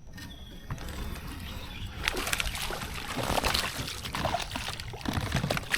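Water splashing and sloshing around a kayak, with irregular knocks and rattles from about two seconds in.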